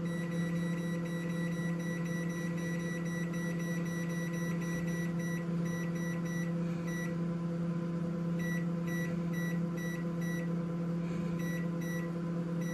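Microwave oven running with a steady hum while its keypad beeps in quick runs of short high beeps, about four a second, with brief pauses between the runs, as the cooking time is being set to about double the packet's 12 minutes.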